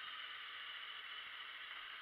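Steady hiss of wind and road rush picked up by a camera on a moving motorcycle, with no engine note standing out.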